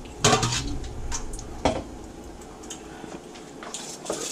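Knife and fish handled on a plastic cutting board at a kitchen sink: a few knocks and clicks as the knife is set down. Near the end a kitchen tap is turned on and water starts running with a steady hiss.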